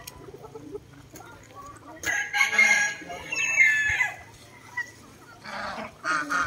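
A rooster crowing once, a long call lasting about two seconds, with shorter chicken calls near the end.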